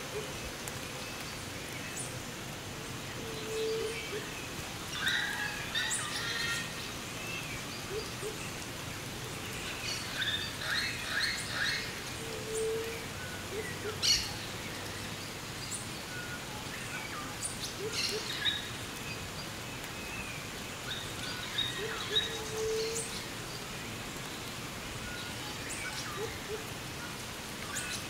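Birds calling and chirping over the steady hiss of light rain, with clusters of chirps about five, ten and twenty-two seconds in and one sharp, loud call about fourteen seconds in.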